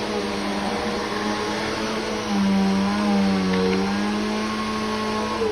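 Vacuum cleaner motor running with a steady whine. Midway its pitch drops and it gets louder for a couple of seconds, as if under heavier suction load. Right at the end it is switched off and winds down.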